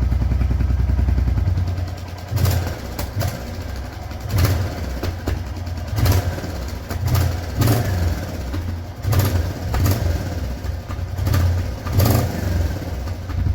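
Royal Enfield Hunter 350's single-cylinder engine running with a steady low rumble, and short sharp louder moments about once a second. The showroom mechanic put the bike's noise down to tappet noise from inside the engine, which grows as the engine heats up.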